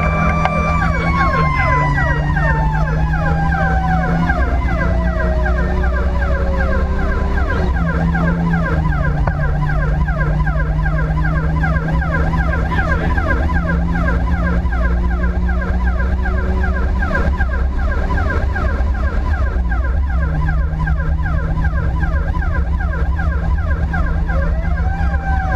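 Fire apparatus sirens on an emergency run, heard from inside the cab: an electronic siren in a rapid yelp, alongside a second siren whose steady wail falls slowly over the first several seconds and rises and falls again near the end, over a constant low drone of engine and road noise.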